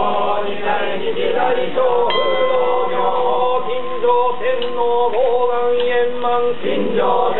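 Yamabushi men chanting a sutra together, voices held on long, near-level pitches with small wavers. A high ringing tone sounds briefly about two seconds in.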